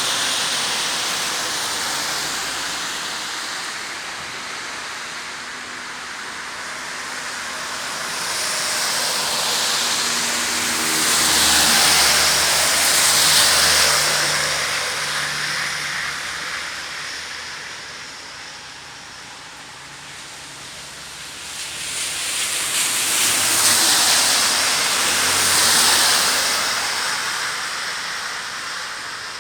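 Steady hiss of rain, with two vehicles passing on the wet road, the first about 8 seconds in and the second about 22 seconds in: a tyre hiss that swells and fades over several seconds each time, with a low engine hum under the first.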